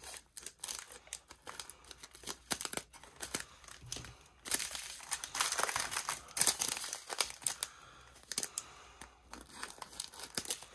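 Small plastic bags of diamond-painting drills crinkling and rustling as they are handled and sorted, in irregular bursts that get busier and louder around the middle.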